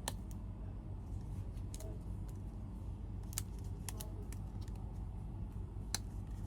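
Hard plastic phone-case parts being handled, giving scattered light clicks and taps, about six over several seconds, over a steady low hum.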